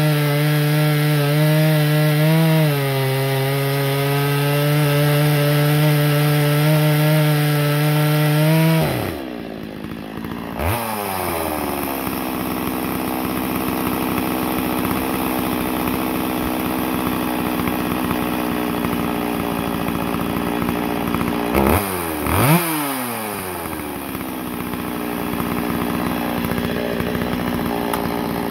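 Stihl 025 two-stroke chainsaw at full throttle cutting through a hard ash log, its pitch dipping now and then as it bogs under the load. About nine seconds in the throttle is released and it falls to idle, with a short rev soon after; it then idles steadily, blipped twice quickly about two thirds of the way through.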